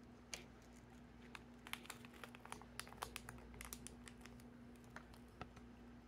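Faint, scattered small clicks and crinkles from hands handling slime and its little plastic add-ins and packaging, busiest in the middle, over a steady low hum.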